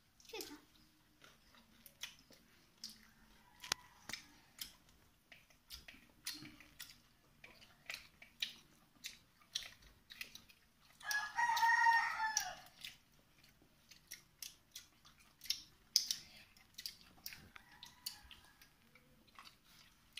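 Close-up eating sounds of people eating rice and curry with their hands: lip smacks, chewing and small clicks every second or so. About eleven seconds in, a loud, drawn-out bird call lasts nearly two seconds, and a fainter one follows near the end.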